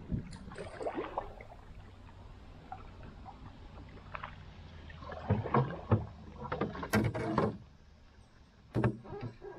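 Canoe paddling: the paddle dipping and pulling through calm water, with clusters of sharp splashes and knocks, loudest about five to seven and a half seconds in and once more near the end.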